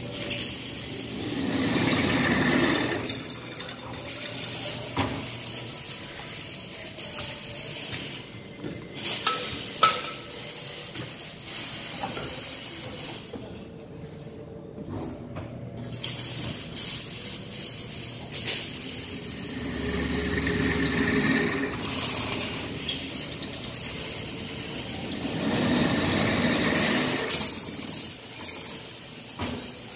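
Drill press boring holes through painted steel bars: the motor runs steadily and the bit cuts in for spells of a few seconds at a time, several times over. Sharp metal clinks and knocks come as the bars are handled.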